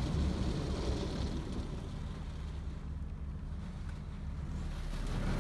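Steady low rumble and hiss of PDQ tandem automatic car wash equipment, heard from inside the car's cabin. The hiss fades after about a second and a half, and the sound swells a little again near the end.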